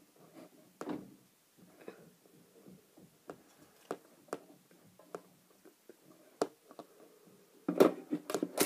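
Scattered light taps and clicks of hands handling things at a table, then a burst of louder rustling and tapping near the end.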